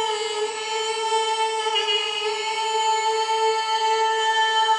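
Handheld singing bowl ringing with one sustained, steady tone and many overtones, kept sounding by a felt-tipped mallet.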